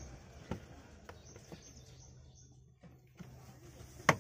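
Light plastic clicks and taps as a luggage-compartment lamp is handled and pressed into the boot's carpet and plastic side trim, with one sharp click near the end, the loudest.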